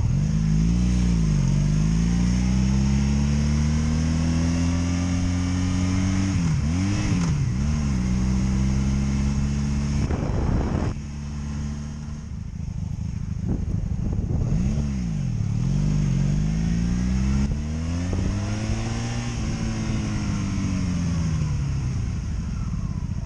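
Honda Magna VF750C's liquid-cooled V4 engine under way, revving up and dropping back in pitch at each upshift through the gears, then easing off and winding down as the bike slows near the end. The owner hears a misfire and popping from the right side of this engine.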